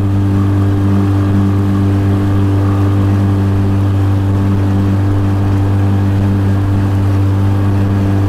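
Tiller-steered outboard motor on a small fishing boat running under way at a steady speed, its pitch holding even.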